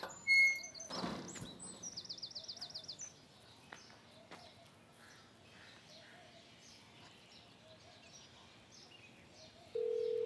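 Birds chirping, with a quick high trill about two seconds in and fainter chirps after it; a short thump sounds just after the start. Near the end a steady single-pitched phone ringback tone begins.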